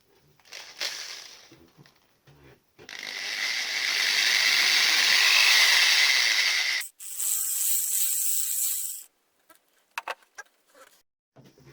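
Drill spinning a homemade metal wire paint mixer: one steady run of about four seconds, then after a brief stop a second, shorter run. A few small clicks and knocks come before and after.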